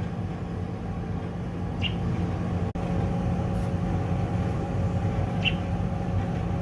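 American robin fledgling giving two short single chirps, about three and a half seconds apart: the occasional location call a hungry fledgling uses to tell its parents where it is. Under them runs a steady low hum.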